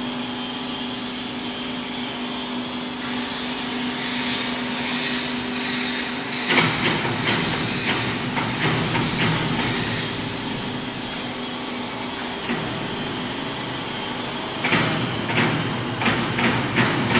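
Motor-driven welding positioner tilting and turning its faceplate under a heavy steel box. A steady hum for the first six seconds or so, then two stretches of irregular rattling and knocking: one about six seconds in and another near the end.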